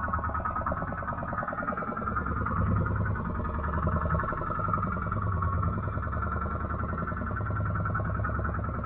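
Fishing boat's engine running steadily, a dense low, rapidly pulsing drone.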